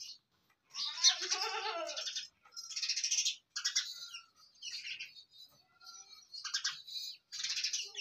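A goat kid gives a wavering bleat about a second in. Birds chirp in short high-pitched bursts again and again around it.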